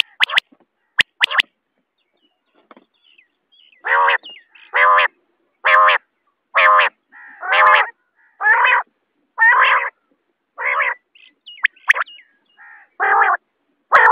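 Common quail calling: a few short sharp call notes in the first second and a half, then after a pause a series of about ten longer, drawn-out call notes, roughly one a second.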